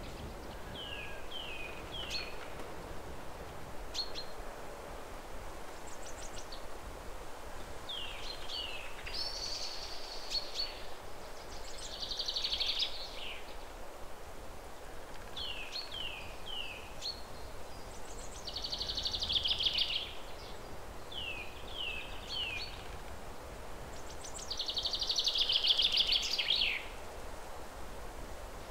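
Songbird singing over a steady hiss: sets of three short, falling chirps, each set followed by a longer buzzy trill, repeating about every six or seven seconds. The trills are the loudest part, the last one near the end loudest of all.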